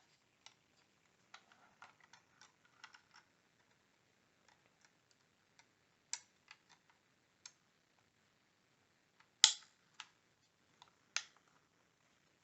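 Scattered light plastic clicks and taps from handling a battery-powered wireless LED light switch, with two louder, sharper clicks near the end.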